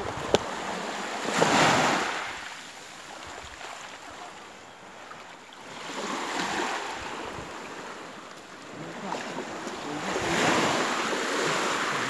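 Small sea waves washing up a sand-and-shingle beach, three surges a few seconds apart, each swelling and then fading. A brief sharp click comes just after the start.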